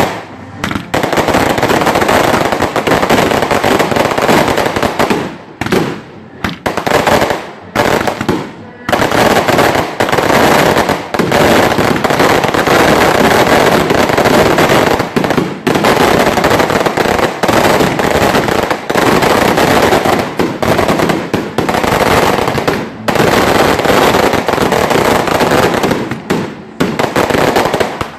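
A long, rapid barrage of firecrackers bursting in the sky, a dense unbroken crackle with a few brief pauses.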